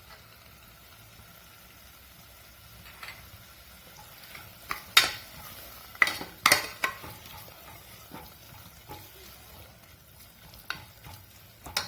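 Spoon stirring a thick masala and yogurt mix in a pressure cooker pan, clinking and scraping against the metal in several sharp knocks, the loudest about five to seven seconds in, over a faint sizzle of frying.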